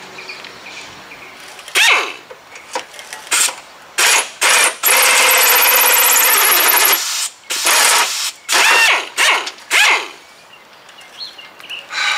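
Pneumatic air drill with a hole saw run in short bursts, with one longer run of about two seconds, against a truck's metal front bumper. The saw does not cut the metal; it is probably not even made for metal.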